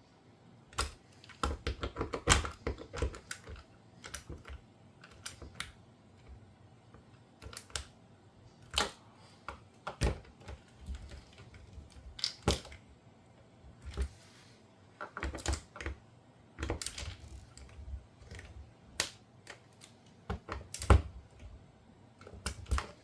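Irregular sharp clicks, taps and knocks of hand tools and plastic parts being handled during repair work, some coming in quick clusters.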